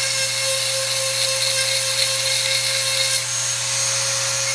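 Dremel rotary tool running at speed with a small grinding stone against a chainsaw chain's cutter tooth, sharpening it: a steady high motor whine with grinding over it, dipping briefly about three and a half seconds in.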